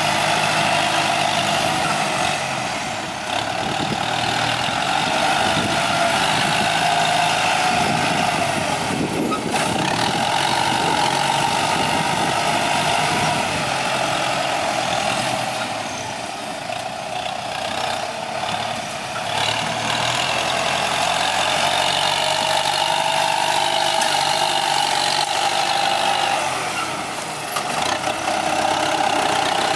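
Kubota M9540 tractor's four-cylinder diesel engine running steadily as the front blade pushes dirt, its note dipping briefly a few times as the load and throttle change.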